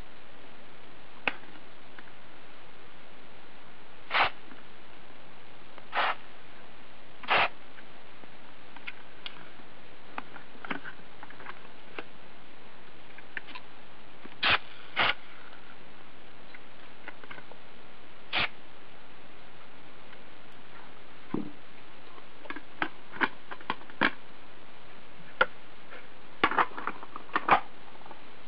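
Irregular clicks and taps of a Roland UA-20 audio interface's casing and small parts being handled while it is taken apart, over a steady faint hiss; the clicks come more often near the end.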